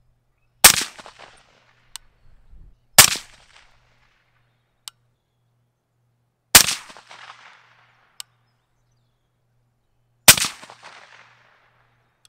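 Four shots from a suppressed 6.5 Grendel AR-15-pattern rifle, spaced about two to four seconds apart, each with a short echoing tail. Faint sharp clicks come between the shots.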